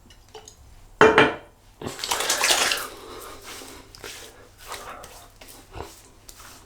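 Homemade witch hazel and tea tree aftershave being applied to a freshly shaved face: a sharp knock about a second in, then about a second of wet splashing noise, followed by softer knocks and rustles.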